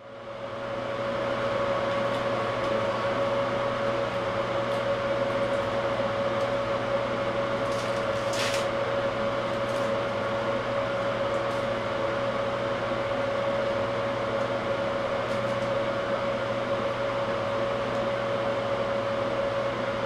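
Bathroom exhaust fan running: a steady hum with a constant mid-pitched tone, fading in at the start. A short hiss about eight seconds in.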